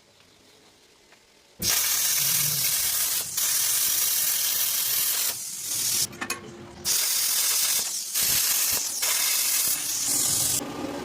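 Loud hissing noise that starts about a second and a half in and is broken by several short pauses.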